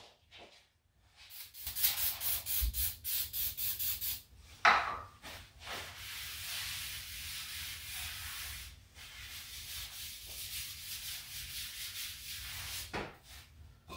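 Rag scrubbing oil off a concrete floor soaked with brake cleaner, first in rapid strokes, then more evenly, with a sharp knock about five seconds in.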